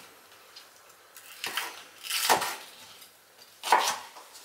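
Kitchen knife slicing spring onions lengthwise into strips on a wooden cutting board: three short cutting strokes, the first about a second and a half in, the second the loudest.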